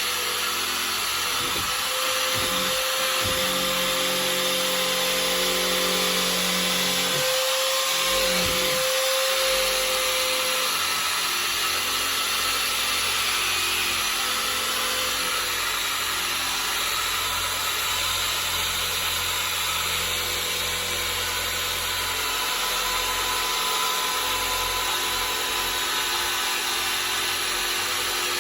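Power drill spinning an abrasive scuff ball against a panel, a continuous whir and scrubbing that scours off residual glue and old surface material as prep before refinishing.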